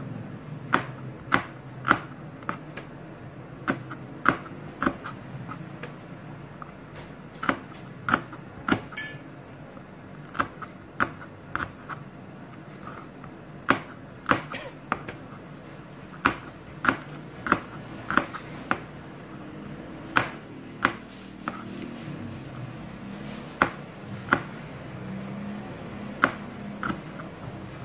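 Chef's knife slicing green bird's-eye chillies on a plastic cutting board: sharp, uneven knocks of the blade hitting the board, roughly one or two a second, over a faint low hum.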